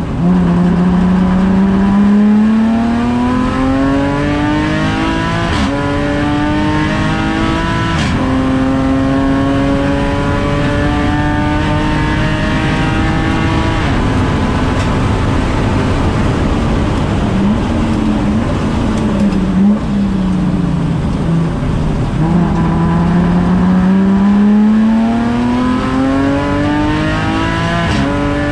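Supercharged BMW M54B30 3.0-litre straight-six heard from inside the race car's cabin, pulling hard with its pitch climbing, broken by two quick upshifts of the 8HP automatic. About halfway it comes off the power, the revs rise and fall through a run of downshifts, then it accelerates again with the pitch climbing near the end.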